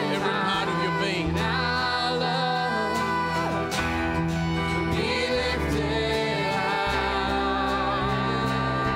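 Live worship band playing a slow song: bass, acoustic and electric guitars holding sustained chords, with a voice singing wordlessly over them.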